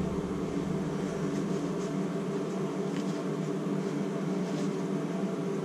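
Steady machine hum with several steady tones, a running motor or fan, with a few faint clicks.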